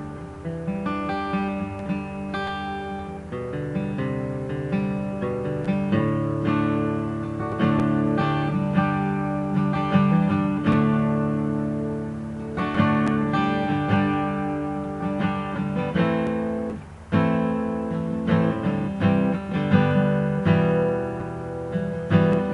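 Dave Nichols-built copy of a 1936 Martin D-28 dreadnought acoustic guitar, Adirondack spruce top with Indian rosewood back and sides, strummed and picked in a steady run of chords, with one brief break about three-quarters of the way through.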